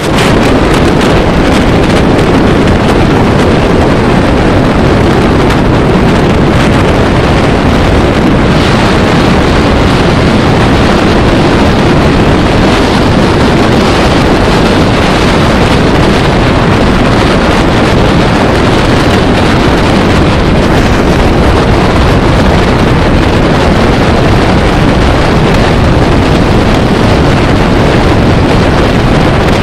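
Loud, steady rush of wind on the microphone of a moving road vehicle, mixed with road noise, with no breaks.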